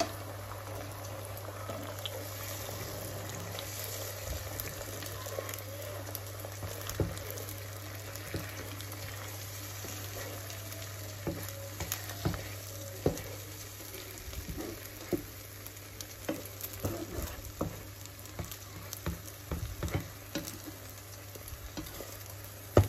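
Beaten egg with scallion pieces sizzling steadily as it fries in a nonstick pan. From about halfway in, a spatula repeatedly scrapes and taps the pan as the setting egg is pushed and folded.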